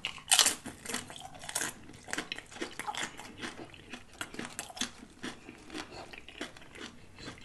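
Loaded shrimp nachos being eaten: a crunching bite into a tortilla chip just after the start, another loud crunch about a second later, then many smaller crunches as the chip is chewed.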